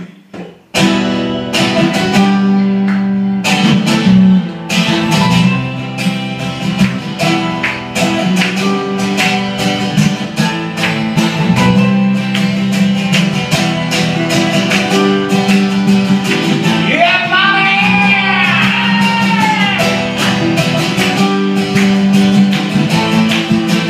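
Live band music: strummed acoustic guitar with keyboard chords, starting suddenly about a second in and going on in a steady strumming rhythm. About two-thirds of the way in, a sustained note slides up and back down over the chords.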